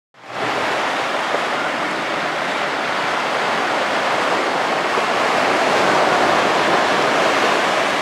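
Sea surf breaking on a beach: a steady rushing wash of waves that fades in at the very start and swells a little about five to seven seconds in.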